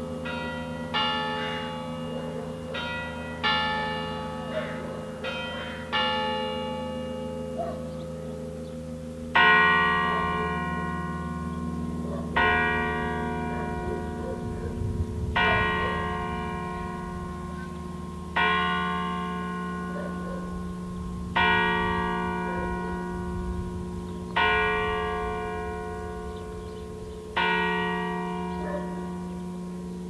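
Church bells ringing, each stroke dying away into a long hum. For the first nine seconds or so the strokes come quickly and unevenly, about one every second or two. Then louder strokes follow at a steady pace of about one every three seconds.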